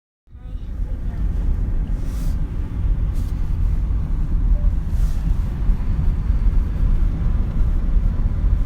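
Steady low rumble of road and engine noise inside a moving car's cabin, starting abruptly a moment in.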